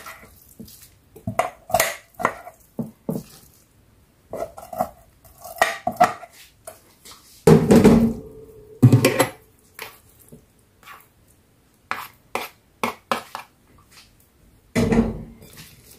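Spoons scraping and knocking on a bowl and plate as reheated fried rice is tipped out and spread around: a run of short clinks and scrapes, with a few louder knocks about halfway through and again near the end.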